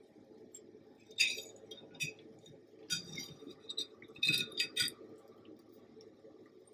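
Metal cake server scraping and clinking against a glass cake plate as a slice of moist bundt cake is cut and worked loose. It comes as several short scrapes and clinks, busiest about four to five seconds in.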